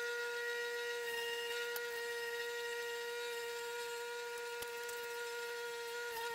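Delta bench grinder running with a wire wheel, a steady whine, while a rusty C-clamp's screw and frame are held against the spinning wire to brush off rust. A couple of faint clicks sound as the part is handled.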